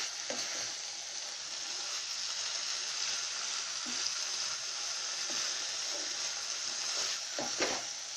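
Nethili dry fish in a thick onion-tomato masala sizzling steadily in a pan on low heat as the masala cooks down. A wooden spatula stirs and scrapes through it now and then.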